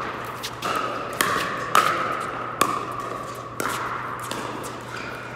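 Pickleball rally: solid paddles striking the hollow plastic ball in quick exchanges, about six sharp pocks half a second to a second apart, each ringing on in a large indoor hall.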